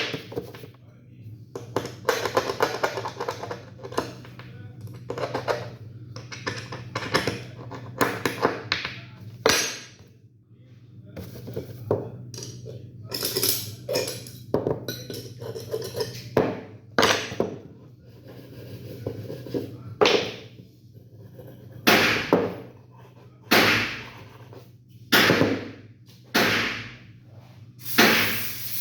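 Glock 17 pistol parts being handled during disassembly and cleaning: repeated clicks, metallic clinks and scraping. Near the end come several short hisses of spray, a second or so apart.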